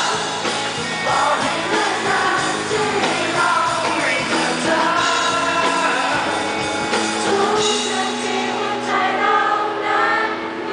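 Live band performance: a male singer singing over acoustic and electric guitars.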